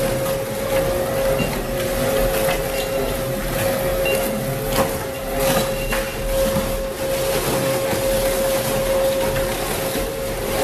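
Twin-shaft shredder running under load, its rotating cutter discs tearing through rubber tyre scraps. A steady machine whine runs under irregular crunches and cracks as the rubber is caught and torn.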